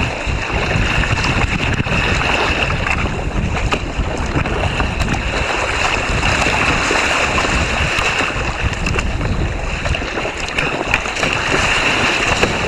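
Strong wind of about 35 knots buffeting the microphone, with water rushing around a sea kayak running downwind in swell and chop. It is a loud, steady rush with no letup.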